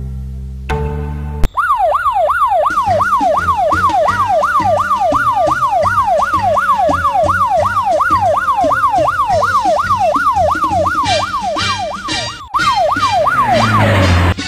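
Siren yelping, its pitch rising and falling fast, about three times a second, over music with a steady beat. It starts about a second and a half in after a short burst of music and gives way near the end to a rising whoosh.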